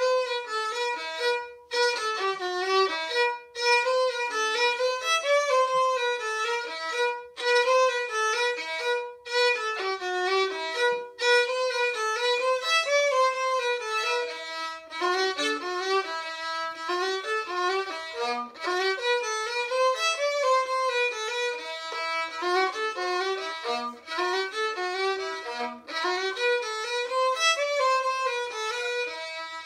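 Solo violin playing a quick tune, the bowed melody moving over a steady held note on a neighbouring string, with brief breaks between phrases. Near the end it settles onto quieter held notes.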